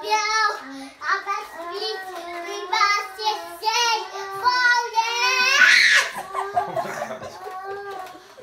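Young children's high voices talking and singing in a sing-song way, with a wavering pitch. About two thirds through comes one loud breathy burst.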